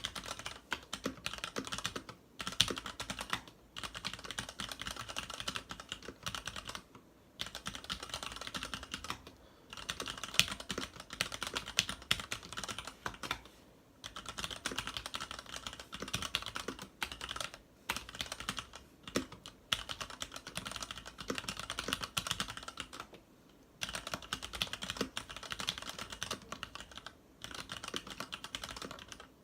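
Typing on a Varmilo VA87M mechanical keyboard with Cherry MX Red linear switches and PBT keycaps: fast, continuous runs of key clacks, broken every few seconds by brief pauses.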